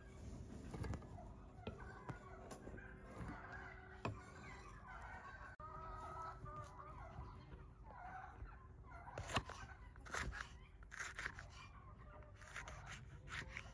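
Kitchen knife cutting vegetables against a thick wooden log cutting board, in a run of sharp clicks that comes mostly in the second half, with farmyard fowl clucking and gobbling in the background, mostly in the middle.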